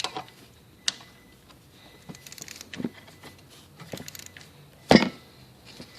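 Scattered light clicks and knocks of hand tools and parts being handled, with one sharper knock near the end; the engine is not running.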